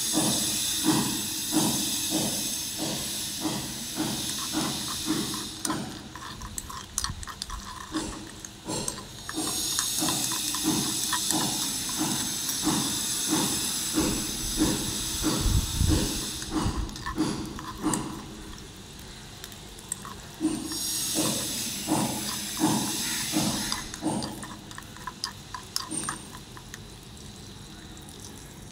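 Tiny pan sizzling in hot oil, the sizzle coming and going in three spells, while a small spoon stirs and scrapes the pan about twice a second.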